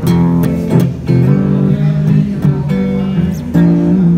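Electric guitar played through a Blackstar combo amplifier: a sequence of strummed chords, each ringing for about half a second to a second before the next, with brief breaks between changes.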